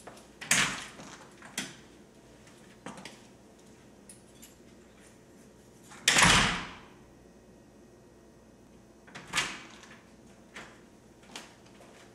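A front door being opened and shut: a sharp unlatching and opening about half a second in, the loudest sound, the door shutting, about six seconds in, and the door opening again about nine seconds in, with a few small latch and handle clicks between.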